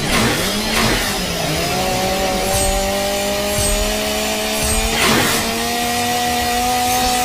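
A motor sound effect revving up, then running as a steady drone that creeps slowly higher in pitch. Sharp swishing hits cut across it about a second in and again near five seconds.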